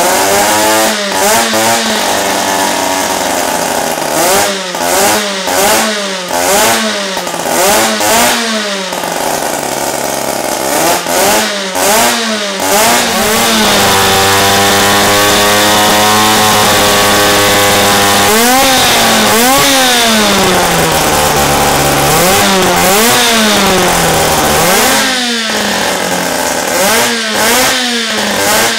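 See-through Wankel rotary engine revving hard in repeated quick blips, its pitch sweeping up and falling back. About halfway through it is held at full throttle at a steady high pitch for some four seconds, then drops back into more quick revs.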